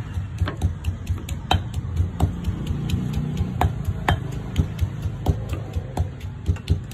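Stone pestle pounding in a stone mortar, a rapid run of dull thuds, pounding curry paste. Every so often comes a sharper knock of a knife cutting down onto a wooden chopping block.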